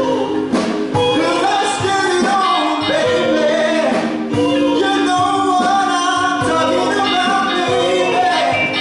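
Live band playing Motown-style soul music, with a male lead vocal singing over it.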